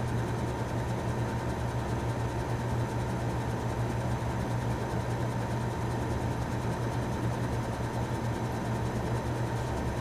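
The condensing unit of a 1931 Frigidaire W-5 refrigerator, an electric motor driving the compressor, running steadily with a constant low hum while it is being charged with refrigerant. A shop fan blows in the background.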